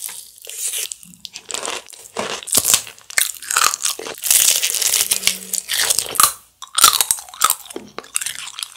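Close-miked crunching and chewing of crispy fried chicken: a run of irregular crunchy bites into the black-pepper-coated batter.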